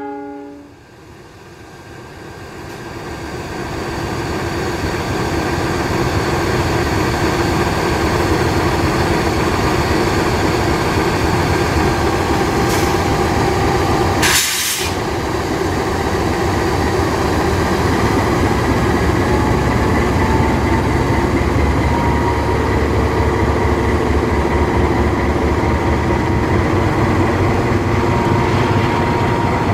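GE CC206 diesel-electric locomotive's V12 engine running as the locomotive moves off: the engine sound rises over the first few seconds, then holds steady. A short hiss comes about halfway through.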